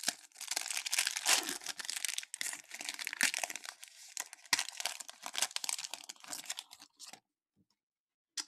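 Foil wrapper of a Topps baseball card pack being torn open and crinkled in the hands, a dense crackling that stops about seven seconds in. A single sharp click comes near the end.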